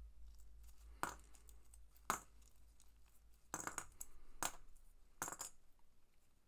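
Small metal binder clips being unclipped from mesh netting and set down: about five sharp metallic clicks and clinks, roughly a second apart.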